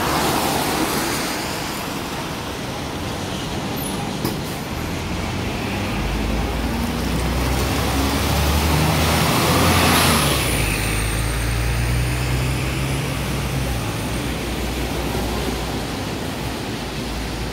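Double-decker diesel bus pulling away and driving past, its engine rising in pitch through the gears and loudest about ten seconds in as it passes, with tyres hissing on the wet road; it then fades into steady traffic noise.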